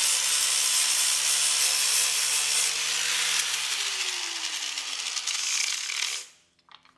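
Angle grinder with a flap disc grinding out a crack in a golf cart's fiberglass body panel. The motor runs at a steady pitch, then is switched off about three and a half seconds in and winds down with a falling pitch, the sound dying away about six seconds in.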